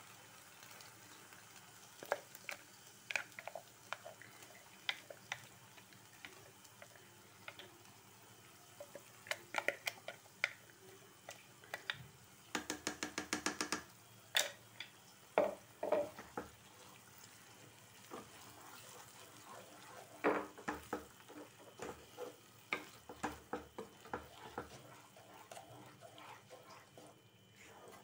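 Spatula stirring and scraping thick dry red chilli paste into fried garlic and ginger in a frying pan, with scattered clicks and a quick run of taps about halfway through, over a faint sizzle of oil on low flame.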